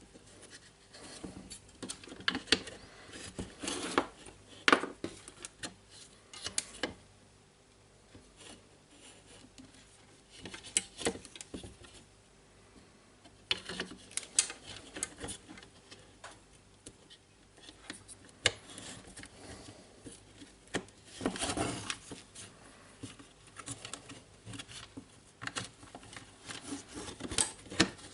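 Irregular clicks, taps and scraping of small tool parts and hand tools handled on a workbench during disassembly or reassembly, with short quiet pauses between bouts.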